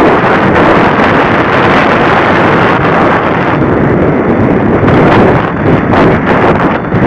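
Loud, steady wind rush and buffeting on a keychain camera's microphone carried in flight, with no clear motor tone standing out.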